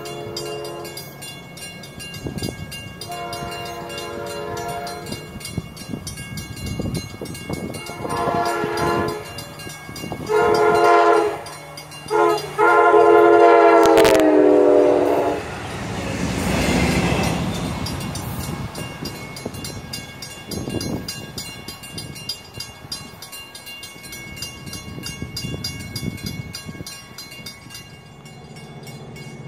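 Amtrak passenger train, with an ex-Metroliner cab car leading, sounding its horn for a grade crossing. The first blasts are spaced apart, then come two long, one short and one long. The last long blast drops in pitch as the cab passes, and the rolling noise of the train's wheels follows and fades away.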